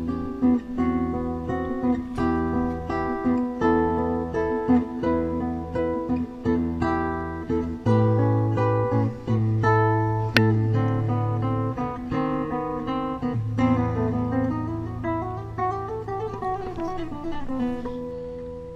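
Background music: solo acoustic guitar playing a steady run of plucked notes over held bass notes.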